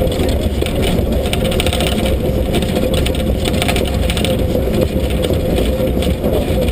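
Steam locomotive SZ 33 037, a 2-10-0, rolling slowly, heard from a camera mounted on its side: a loud, steady running noise with rattling, a steady hum and wind rumbling on the microphone.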